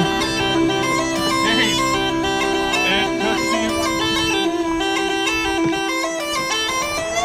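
Background music: a bagpipe tune, its melody moving in stepped notes over a steady drone.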